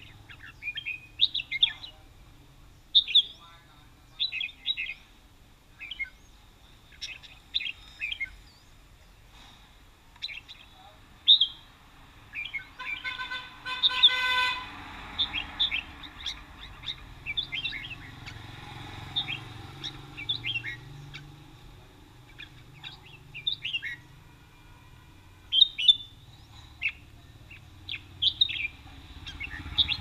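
Caged red-whiskered bulbuls calling and singing in short, repeated chirps and whistled phrases. About halfway through, a horn sounds once as a steady tone for about two seconds.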